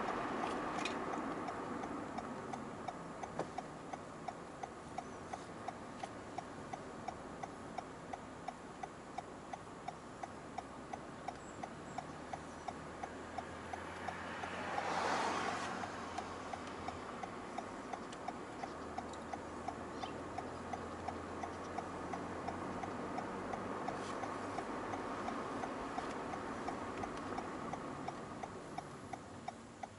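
Car turn-signal indicator ticking steadily, about one and a half ticks a second, over road noise inside the moving car. An oncoming car swishes past about halfway through.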